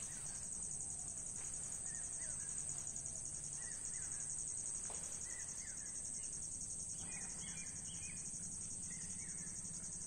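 Outdoor ambience: a steady high-pitched insect trill with a fine, fast pulse, over which faint short bird chirps come and go, above a low steady background hum.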